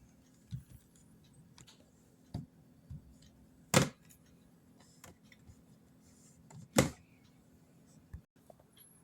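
Scattered knocks and clicks of hard objects being handled, with two loud knocks about three seconds apart in the middle.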